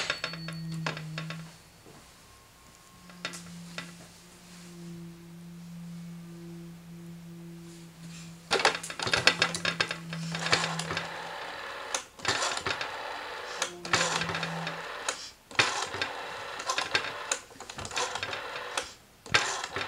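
Rotary dial of a vintage telephone being turned and whirring back several times, a rattling, clicking run each time, starting about eight seconds in. Before that a low steady hum comes and goes.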